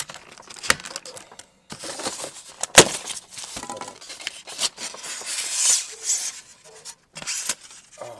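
Packaging being wrestled open to free a toy gun: rustling, scraping and tearing with many sharp clicks and knocks, the loudest a sharp crack about three seconds in.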